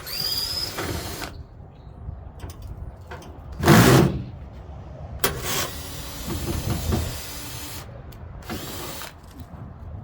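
Cordless power screwdriver running in several short bursts, working screws out of a front-load washer. The first burst has a falling whine, and the loudest comes about four seconds in.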